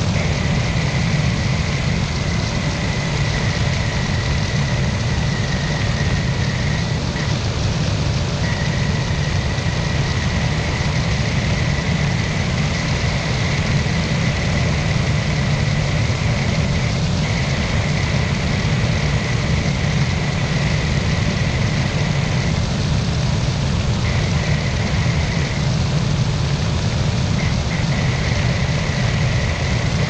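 Flex-wing microlight trike in flight: its pusher-propeller engine runs steadily under a constant rush of wind on the wing-mounted microphone. A thin high whine cuts out and returns several times.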